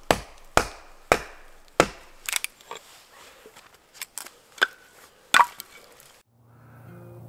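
Kindling being split on a log: four sharp chops in the first two seconds, then lighter knocks and clacks of the split sticks. Music with a low steady drone fades in near the end.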